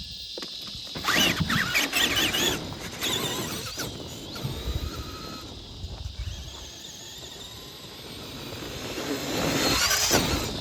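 Traxxas Summit RC truck's electric motor and drivetrain whining in bursts as the throttle is punched, pitch gliding up and down, with a longer build to a loud run near the end.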